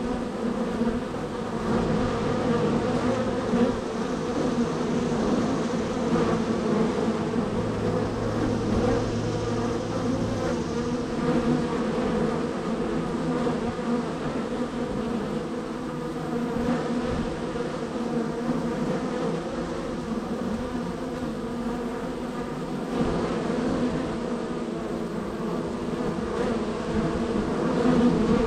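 Honey bees swarming in and out of a busy hive entrance, their many wingbeats blending into one steady, dense buzzing hum.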